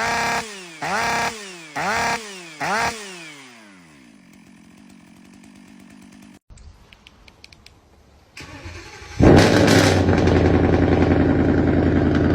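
Four short musical stabs, each sliding down in pitch, die away. About nine seconds in, a chainsaw engine starts suddenly and runs on loud and steady at a fast idle.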